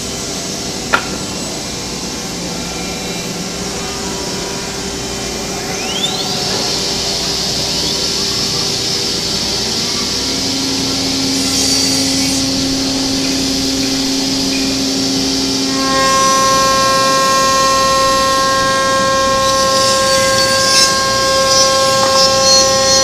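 5-axis CNC wood-carving router running: steady machine noise with whining tones from the spindle and drive motors. A whine rises in pitch about six seconds in, and a new set of steady, louder tones comes in about sixteen seconds in.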